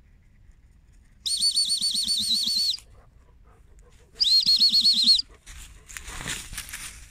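Two trilled blasts on a pea whistle, a long one about a second in and a shorter one a few seconds later, the handler's whistle signal to a gundog. A softer rustling follows near the end.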